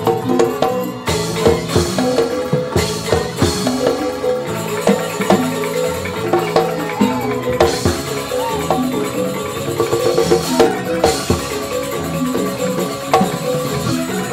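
Joged bumbung gamelan music: bamboo xylophones play fast, dense struck patterns over drums and jingling percussion.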